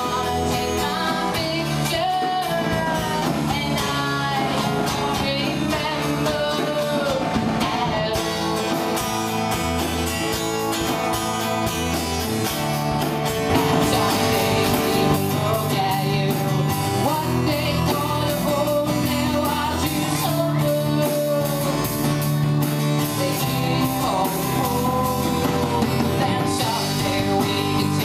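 Live acoustic band music: a woman sings while strumming an acoustic guitar, backed by a drum kit with cymbals.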